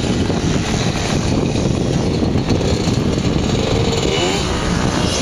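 Dirt bike engine running on a motocross track, its pitch rising and falling with the throttle near the end.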